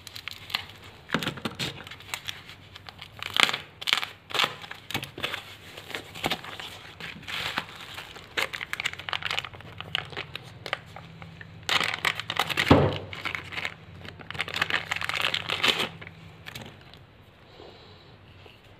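Plastic packaging (bubble wrap and a clear plastic bag) crinkling and rustling in irregular bursts as it is handled and pulled off a small DC motor. It dies down to quiet handling about two seconds before the end.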